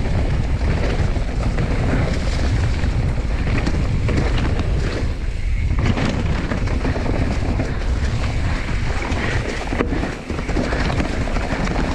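Wind rushing over the microphone of a bike-mounted camera, with a mountain bike's tyres rumbling and the bike rattling as it rides down a dirt forest trail. The noise is steady, with a brief drop about ten seconds in.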